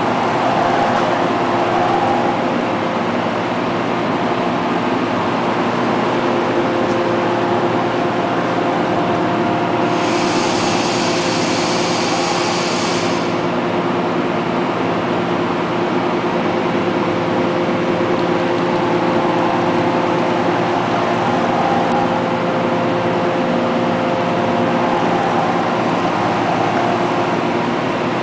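CNC machine running steadily, a machine hum with several held tones. A high hiss joins in for about three seconds near the middle.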